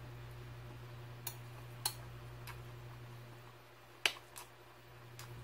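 Metal spoon clicking against a ceramic cereal bowl a few times, the loudest a little after four seconds in, over a steady low hum.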